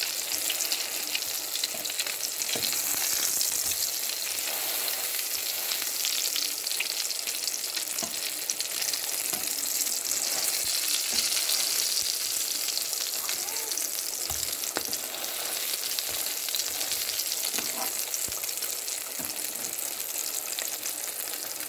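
Burger patties of minced meat frying in oil in a non-stick pan, a steady sizzle with fine crackling, and a few light knocks and scrapes as a spatula moves them.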